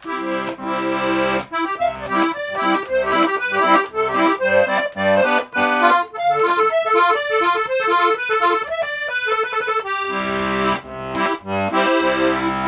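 A small 1934 Hohner piano accordion, fully repaired and back in working order, plays a lively tune: quick melody notes over a bass and chord accompaniment, changing to long held chords about ten seconds in.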